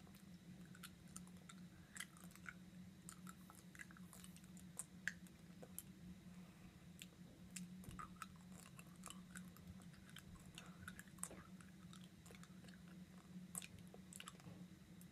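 Faint chewing of hard Runts candies: small irregular crunches and mouth clicks. A low steady hum runs underneath.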